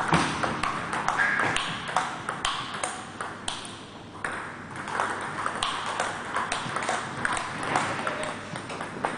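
Table tennis ball being hit back and forth in a rally, a steady run of sharp clicks a few times a second as it strikes the bats and bounces on the table.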